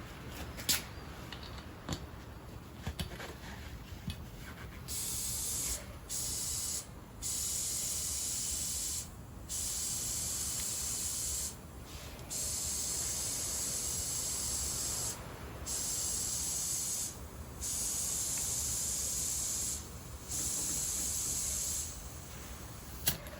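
Compressed air hissing through an inflator chuck into a small tractor-wheel inner tube, in about eight bursts of one to three seconds with short breaks between them, as the tube is pumped up. A few sharp clicks of handling come in the first few seconds.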